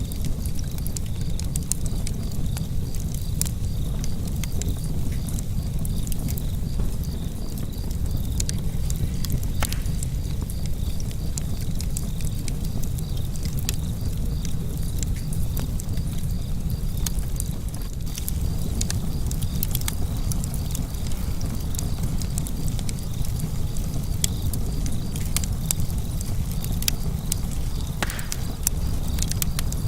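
Wood fire burning in a fireplace: a steady low rumble with frequent small crackles and pops. A couple of louder pops come about ten seconds in and near the end.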